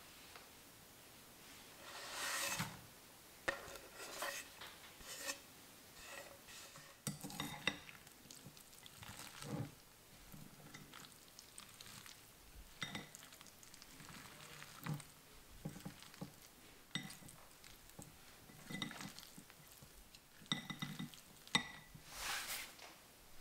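Chopsticks stirring marinating sliced lamb in a glass bowl: faint, irregular taps and clinks of the chopsticks on the glass, with short scraping swishes as the meat is turned.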